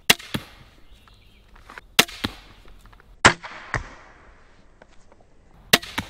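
Four shots from an EK Archery Cobra Adder magazine-fed crossbow with its 180 lb limb, fired a couple of seconds apart. Each is a sharp snap followed a fraction of a second later by a second crack as the bolt strikes the foam target.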